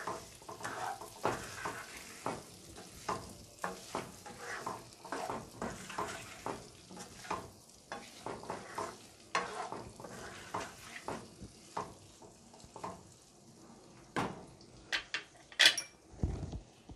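A black spatula scraping and turning cubed boiled potatoes in a non-stick kadai, with a light sizzle of hot oil under a steady run of irregular stirring strokes while the spices are mixed in. Near the end come a few sharp clacks and a dull knock as the spatula is set down on a plastic spoon rest.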